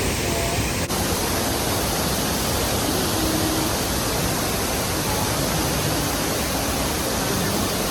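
Steady, loud rushing of a waterfall: falling water making an even hiss across all pitches.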